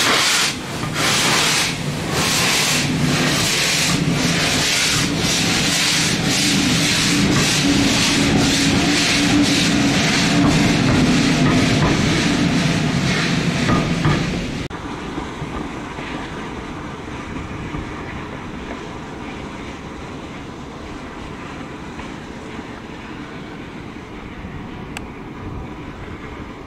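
Three-cylinder Bulleid West Country class steam locomotive 34027 Taw Valley pulling away hard, its exhaust beats coming quicker as it gathers speed, with the hiss of steam and the rumble of the train. About halfway through the beats stop suddenly and a steadier, quieter rumble and hiss is left.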